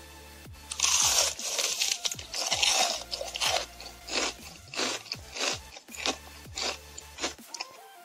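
Biting into a paper-wrapped veggie burger and chewing it close to the microphone: two longer crunches in the first few seconds, then short crunches at a steady chewing pace of a little under two a second. Faint background music underneath.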